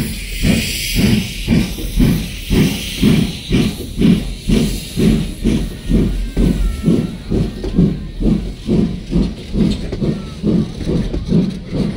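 Steam locomotive's exhaust chuffing at an even beat of about two a second as it pulls away, with a hiss of steam that thins out after the first few seconds.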